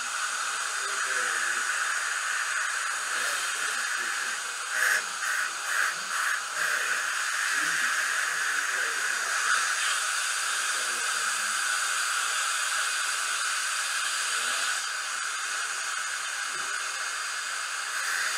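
Steady hiss of a dental rotary handpiece and suction while a bur shapes a Fuji II glass-ionomer filling at the gumline, with a few short stop-start bursts about five seconds in.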